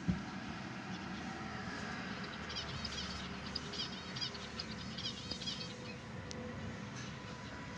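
A small bird twittering: a rapid run of high chirps begins about two and a half seconds in and lasts about three seconds, over a steady low background rumble.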